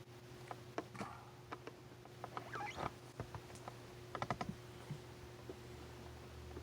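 Faint, scattered clicks and taps of small plastic action figures being handled and moved, over a faint steady hum.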